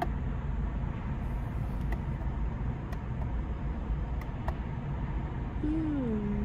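Steady low hum inside the cabin of a stationary Chevy Malibu, with a few light clicks. Near the end comes a short hum that falls in pitch.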